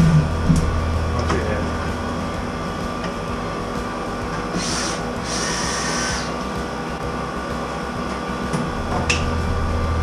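Cordless screw gun whirring in two short runs a little under five seconds in, backing sheet-metal screws out of a tin water-heater vent pipe. A steady mechanical hum and a few light knocks lie under it.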